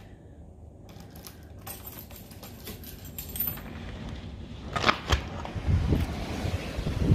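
Clicking and rattling of a door being unlocked and opened, with two louder clacks about five seconds in. Then gusty storm wind buffets the microphone, growing stronger near the end.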